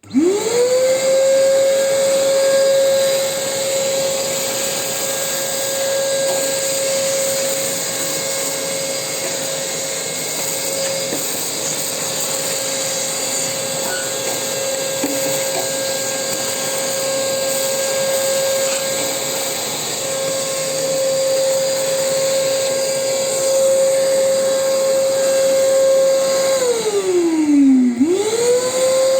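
A vacuum cleaner drawing air through a homemade milk-can cyclone dust separator. The motor switches on with a quickly rising whine and runs steadily at a high pitch. About 27 seconds in it switches off with a falling whine, then switches on again briefly near the end.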